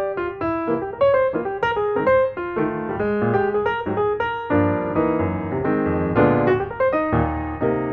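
Background piano music: a lively run of single notes over chords, growing busier about halfway through.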